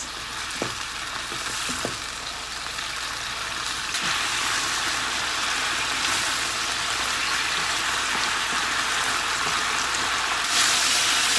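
Thinly sliced beef sizzling in a frying pan in a sweet soy-based sauce as it is stirred and turned with chopsticks, with a few faint clicks of the chopsticks early on. The sizzle grows louder about four seconds in.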